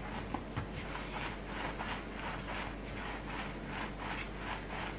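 Hands rolling bagel dough back and forth on a wooden tabletop: soft rhythmic swishing and rubbing, about three strokes a second, with two light knocks about half a second in.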